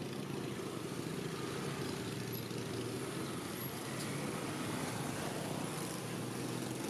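Busy street traffic, mostly motor scooters with a car among them, running and passing close by: a steady din of small engines.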